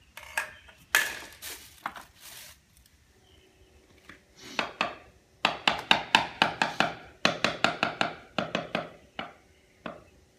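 A trowel working the mortar at a floor tile's edge: a few scrapes, then a fast run of short chopping and scraping strokes, about five a second.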